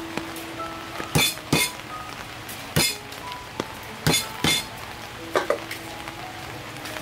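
A cleaver chopping on a round wooden chopping board: about seven sharp chops, mostly in quick pairs, with pauses between.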